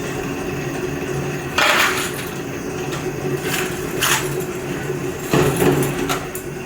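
Workshop machinery humming steadily while metal pieces clink and clatter several times, irregularly, a second or two apart.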